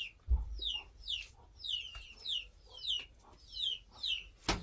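Chick peeping: a string of short, high calls, each falling in pitch, about two or three a second. A sharp click sounds near the end.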